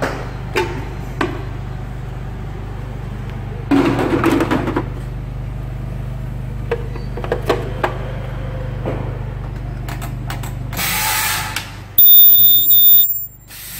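A 4200 W ultrasonic plastic welding press over a steady low machine hum. Knocks and clicks come as a plastic part is handled into the fixture. Near the end there is a short hiss, then about a second of loud welding with a piercing high-pitched whistle that cuts off suddenly.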